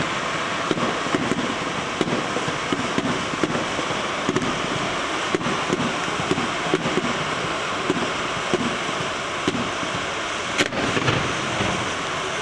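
Fireworks going off: a continuous crackling hiss of fountains and small bursting stars, dense with quick pops, and one louder bang near the end.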